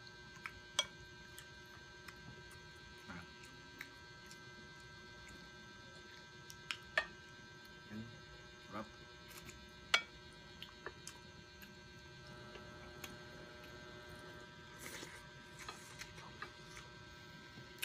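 Steady electrical hum made of several fixed tones, with scattered soft clicks of spoons and chopsticks on the bowl and plates during eating, the sharpest about a second in and around ten seconds in.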